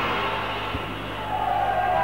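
Live rock band music from amplified stage instruments, thinning out briefly before a long held high note comes in about halfway through.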